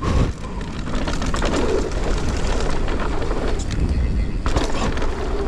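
Mountain bike rolling fast down a dirt jump trail: a heavy, steady rumble of wind buffeting the microphone, with tyres running over dirt and short rattles from the bike.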